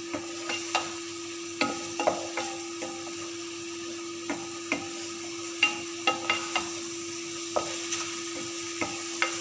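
Thinly sliced chicken frying and sizzling in a pan while a spatula stirs it, knocking and scraping against the pan in irregular sharp clacks. A steady hum runs underneath.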